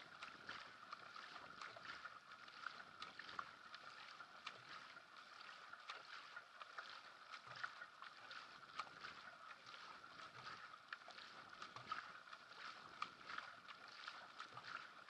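Faint, steady rush of water along a sprint racing kayak's hull, with frequent short splashes as the paddle blades catch and leave the water on alternating strokes.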